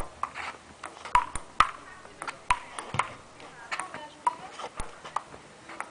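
Table tennis ball clicking in an irregular stream of sharp knocks off rubber paddles and an outdoor concrete table during a rally, each with a short bright ring.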